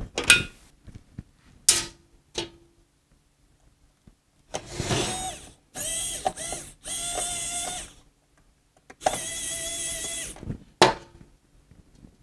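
Handling noise as a temperature sensor's cable is wired into a temperature controller's terminals: a few sharp clicks, then four rubbing, whirring sounds of about a second each, and one more click near the end.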